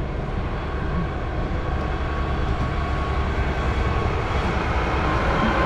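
Garbage truck's engine running and drawing nearer: a steady low rumble that grows gradually louder, with a faint whine rising a little in pitch.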